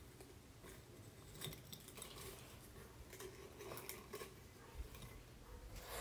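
Near silence: room tone with a few faint clicks and rustles of handling.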